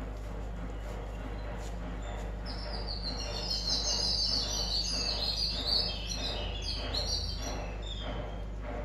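Birds chirping in a rapid, overlapping chorus of short high notes that starts about two and a half seconds in and dies away near the end, over a steady low hum.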